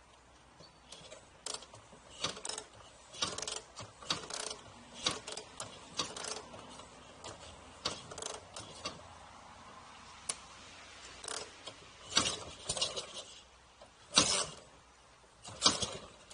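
Irregular metallic clicks, clinks and short rattles of hand work on a Dnepr MT9 sidecar motorcycle with its engine not running. The loudest clicks come near the end.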